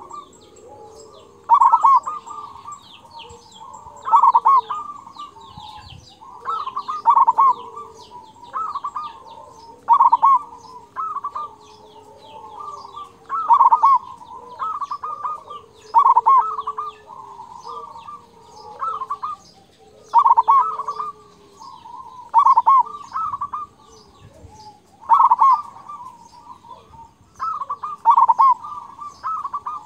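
Zebra dove (perkutut) singing its cooing song with the big 'kung' voice, repeating a phrase about every two and a half to three seconds. Small birds chirp faintly and high-pitched in the background.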